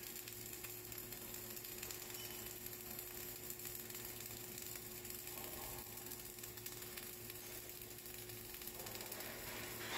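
Flux-cored arc welding: the arc crackling and sizzling steadily while the wire is fed, with a steady low hum underneath.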